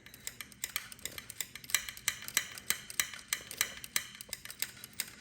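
Rapid metallic clicking, about three clicks a second, as a loosened nut is spun off its thread down inside the rattle reel's tube with a screwdriver.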